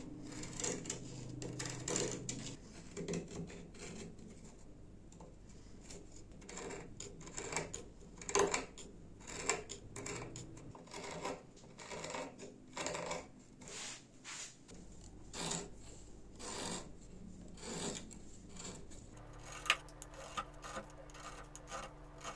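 Wild plum wood being scraped down by hand with an abrasive, in irregular strokes about one a second, some louder than others.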